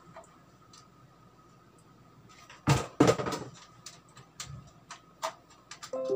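Handling noise from a plastic gaming headset being lifted and moved by hand: a short burst of clattering knocks and rustle about three seconds in, then scattered light clicks. An electronic chime of a few steady tones starts right at the end.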